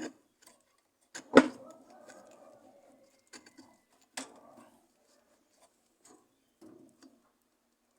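Clicks and knocks of parts being handled and fitted into a Consul washing machine's wash mechanism, with one sharp knock about one and a half seconds in, the loudest, and lighter taps after it.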